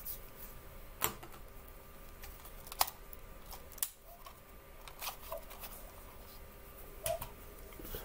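Quiet room tone broken by a handful of short, sharp clicks at irregular intervals, with a couple of faint short high notes in the later half.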